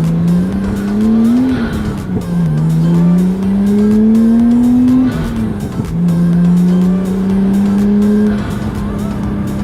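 Nissan Skyline R33 engine heard from inside the cabin, pulling up through the gears. Its pitch climbs, drops at gear changes about two seconds and about five and a half seconds in, climbs again, then holds steady near the end. The open air filter's intake blows loudly into the cabin.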